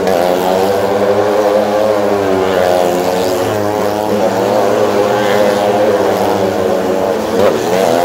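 Engines of a motorcycle and a car riding around the wooden wall of a well of death, running steadily at speed with their pitch wavering up and down as they circle. Near the end the pitch dips sharply and comes back up as a vehicle sweeps past.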